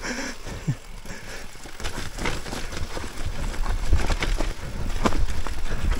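Mountain bike descending a rough off-piste trail: tyres on dirt and rock, with the bike rattling through repeated knocks and thumps over a low rumble, growing louder in the second half.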